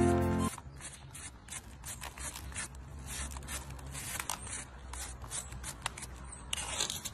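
Hoof pick scraping packed dirt out of the sole of a shod horse's hoof: a quick, irregular run of short scrapes and flicks.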